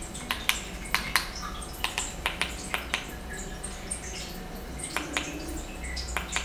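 Small plastic buttons clicking, about a dozen irregular presses, as the mini projector's on-screen menu is stepped through, over a steady low hum.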